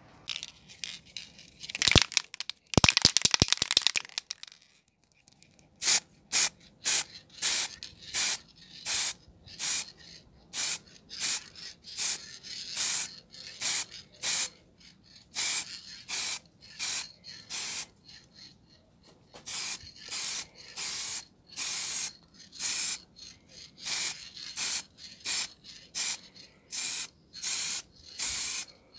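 Aerosol can of Motip wheel paint rattled briefly, then sprayed in short hissing bursts, about two a second, with a short pause about two thirds of the way through. The bursts are light passes laying a coat of paint onto an alloy wheel.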